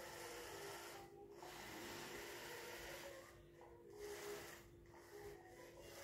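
Faint whirring hiss from the small electric drive motors of a toy robotic sweeping truck. It cuts out briefly several times as the truck stops and starts, over a steady faint hum.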